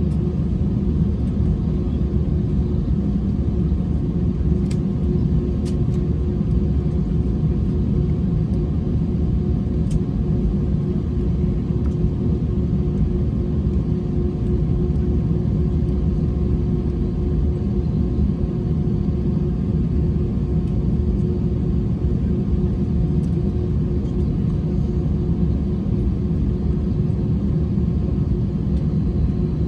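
Airbus A321 cabin noise on the ground after landing: a steady low rumble with a constant hum over it, and a few faint clicks about five and ten seconds in.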